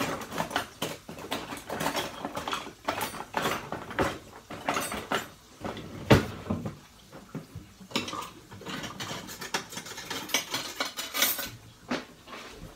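Kitchen utensils and dishes clattering: a run of irregular metal knocks and scrapes, with the sharpest knock about six seconds in.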